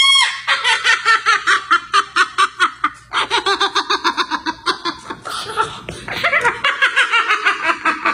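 White parrot imitating laughter: a long run of rapid, high-pitched 'ha-ha' notes, with a brief break about three seconds in.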